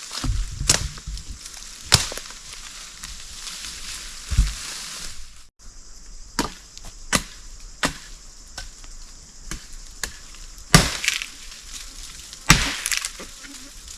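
Irregular chopping strikes on wood, about ten sharp blows with uneven gaps, over a steady high hiss.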